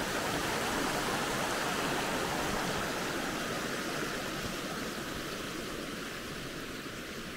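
Small brook flowing: a steady rush of water that fades a little toward the end.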